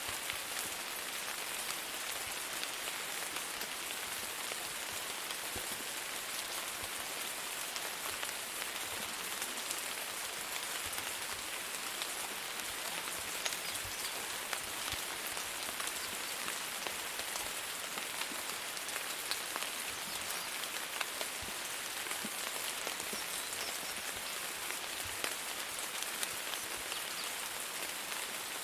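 Steady rain falling on a surface, an even hiss with many small scattered drop ticks throughout.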